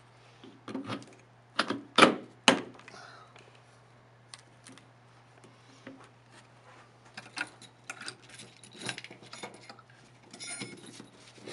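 Hard clicks and knocks of parts being handled as a golf-trolley wheel is fitted onto its hub motor and the screw holes are lined up. Two sharp knocks are the loudest, about two seconds in, with lighter clicks and rattles after.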